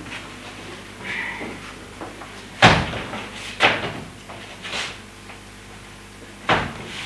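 A series of hard knocks and bangs on the stage around a grand piano. There is a faint one about a second in, then four louder ones; the first of these, about two and a half seconds in, is the loudest. Each has a short echoing tail.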